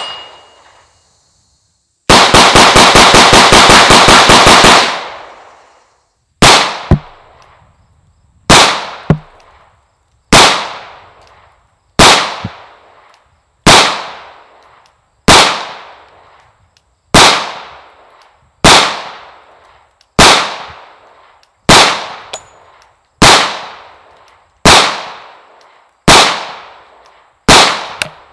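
CZ 75 P-01 9mm pistol firing: a fast string of shots lasting under three seconds, then, after a short pause, slow, evenly spaced single shots about one every one and a half seconds, each report trailing off briefly.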